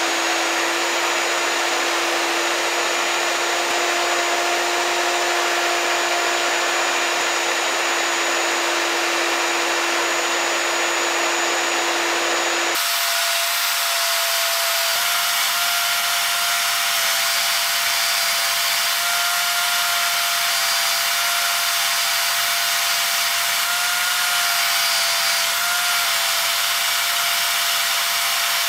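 Benchtop drill press running a cloth buffing wheel, with steel wrench parts held against it for polishing: a steady motor whine over a rubbing hiss. The pitch of the steady tone changes abruptly about 13 seconds in.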